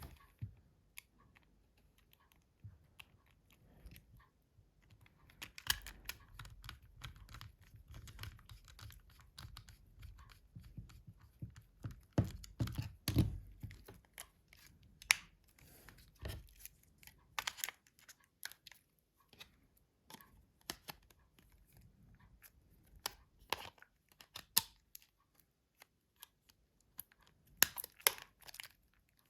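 Small plastic phone parts and a tiny screwdriver being handled while a Nokia C2-06 mobile phone is reassembled: scattered light clicks, taps and rubbing, with duller handling bumps in the middle.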